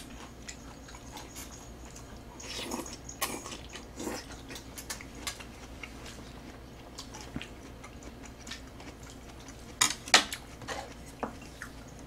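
Chopsticks clicking and scraping against a metal tray and a bowl during eating, with scattered chewing sounds. Two sharp clacks come about ten seconds in.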